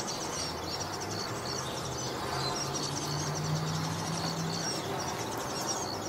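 Japanese white-eyes chirping: a run of short, high, thin calls, several a second, over steady outdoor background noise. A low hum comes in about a second in and fades out near the end.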